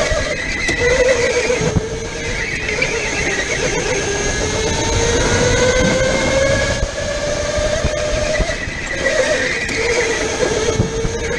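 Go-kart motor whining at racing speed. Its pitch climbs steadily as the kart accelerates, then drops sharply each time it slows for a corner, over a constant rumble of tyres and chassis.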